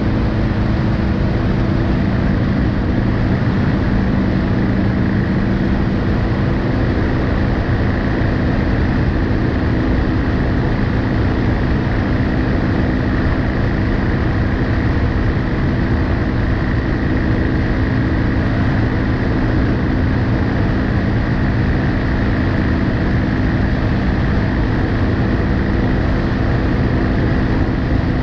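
BMW R1250GSA motorcycle's boxer-twin engine cruising at a steady pitch, heard from a front-mounted camera under a constant rush of wind and road noise.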